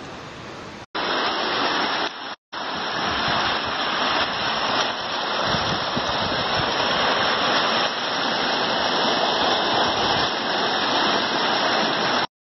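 Muddy floodwater rushing down a street: a loud, steady rush of running water. It breaks off for a moment twice in the first few seconds and stops abruptly near the end.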